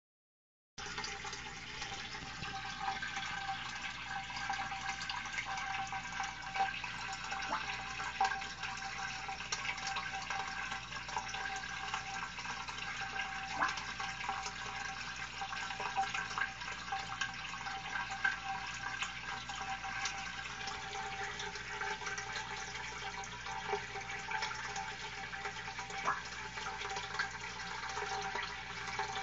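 Aquarium water circulating from a tank filter: a steady trickling, splashing rush with many small plinks of droplets.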